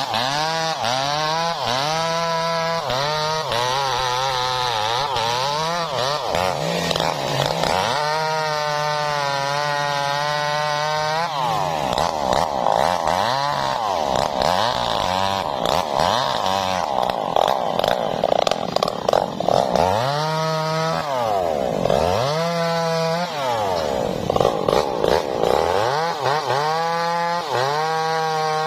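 Two-stroke chainsaw cutting wood, its engine revved up and down over and over, held at high revs for a few seconds in the middle.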